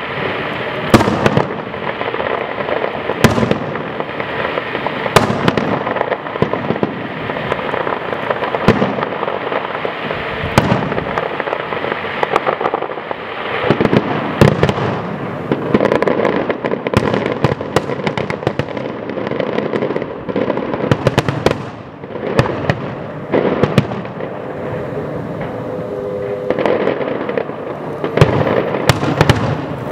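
Fireworks display: aerial shells bursting in irregular succession with many sharp bangs over a constant crackling.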